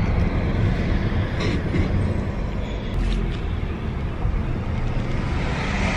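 Car engine and road rumble heard inside the cabin, low and steady, with a few faint clicks. A hiss grows louder near the end.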